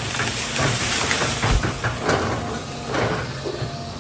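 Wood cracking and splintering and branches crashing down as an excavator bucket pushes a tree over, with a deep thump about a second and a half in. The John Deere excavator's diesel engine runs steadily underneath.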